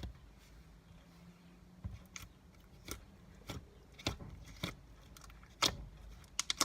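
A string of short, crisp clicks and snaps at irregular spacing, about one or two a second, with a quick double snap near the end.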